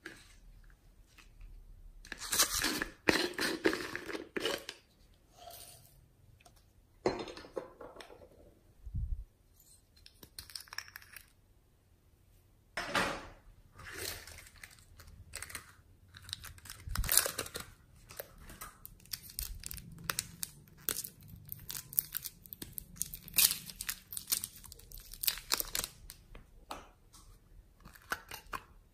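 Beads and sprinkles rattling as they are shaken and poured out of small plastic bottles and boxes onto slime, with clicks and crinkles from the plastic containers being handled. It comes in irregular bursts, the loudest a few seconds in.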